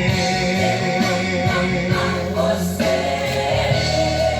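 Romantic ballad in Portuguese: a singer holds out the word 'querer' over backing music, then the accompaniment carries on without words.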